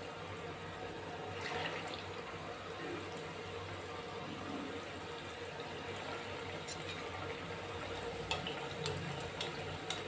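Khoya-and-wheat-flour gulab jamun balls deep-frying in hot oil: a quiet, steady sizzle of bubbling oil, with a few light ticks near the end.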